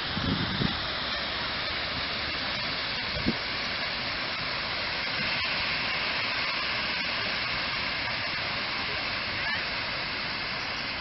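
Large ornamental fountain's water jets spraying and splashing into the basin, a steady hiss. A brief thump about three seconds in.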